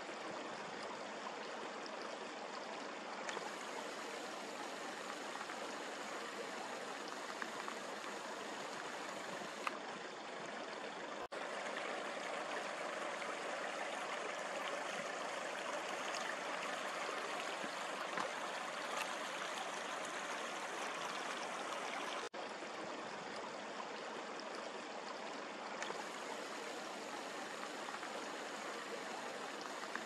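Water of a partly frozen river running, a steady rushing hiss, broken by two brief dropouts.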